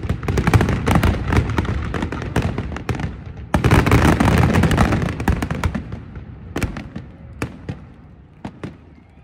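Fireworks display: a dense barrage of bangs and crackling, with a heavy fresh burst about three and a half seconds in, then thinning to a few scattered single bangs near the end.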